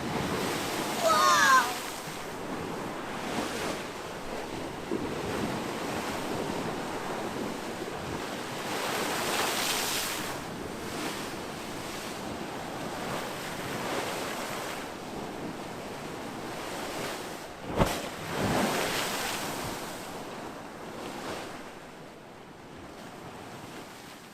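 Waves washing in against the river shore, swelling every four to five seconds, with wind on the microphone. A brief warbling whistle sounds about a second in, and a single sharp crack comes about three quarters of the way through.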